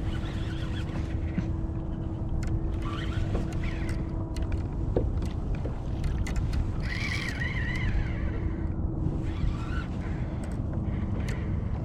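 Wind rumbling on the microphone and water noise around a kayak on open salt water, with birds calling a few times in wavering high cries, loudest about seven seconds in.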